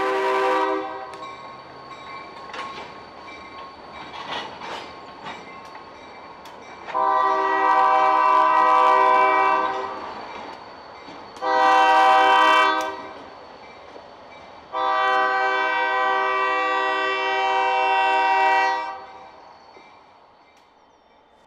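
Diesel locomotive's air horn sounding the grade-crossing signal: a long blast ends about a second in, then a long, a short and a long blast follow. Between the blasts the train's wheels click over the rail joints.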